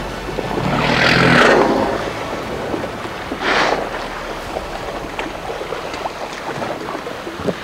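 Wind and sea noise aboard a boat, with two loud whooshing rushes, one of about a second near the start and a shorter one about three and a half seconds in.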